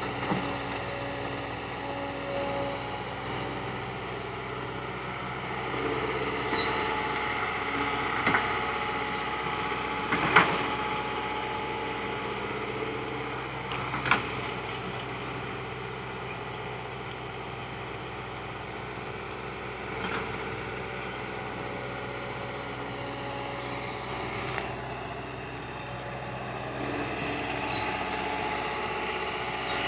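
Hydraulic excavator's diesel engine running steadily, its pitch rising as it works, with a few sharp metallic knocks from the machine while it digs.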